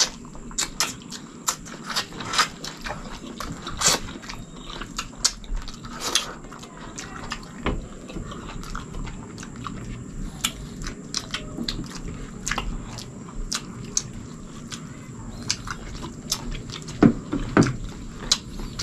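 Close-up eating sounds from two people: wet chewing and lip smacks on chicken and rice, an irregular run of sharp mouth clicks.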